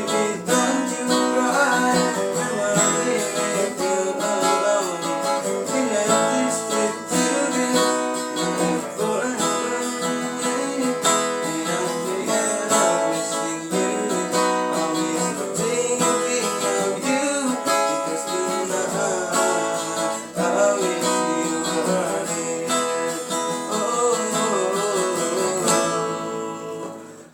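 Music: a song played on strummed acoustic guitar, fading out near the end.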